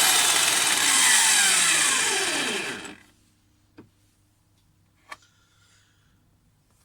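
Lidl pillar drill's motor running flat out with a 3 mm end mill in the chuck, then switched off: its whine falls steadily in pitch as the spindle winds down, stopping about three seconds in. Two faint clicks follow.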